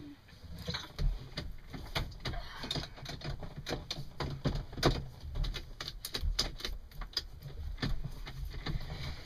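A run of irregular clicks and knocks over a low rumble, none of them in a steady rhythm.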